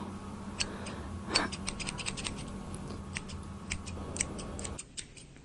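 Hair-cutting scissors snipping hair in quick, irregular runs of short, sharp clicks, faint over a low steady hum.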